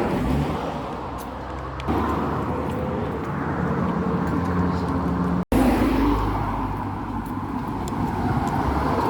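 A car driving: steady engine hum and road noise. The sound breaks off abruptly about five and a half seconds in and picks up again at once.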